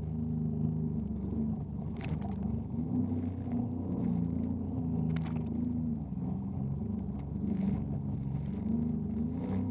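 Jet ski engine running steadily, its pitch shifting up and down, with a few short sharp knocks: about two, five and nine and a half seconds in.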